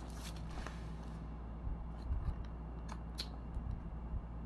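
A cardboard product box being handled: a few light clicks and taps, most of them in the middle of the clip, over a steady low hum.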